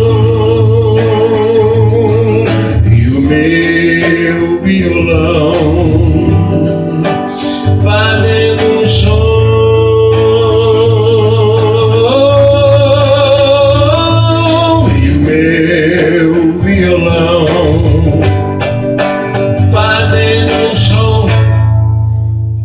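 A man singing long, wavering held notes to his own acoustic guitar. Near the end he stops playing and the last note dies away.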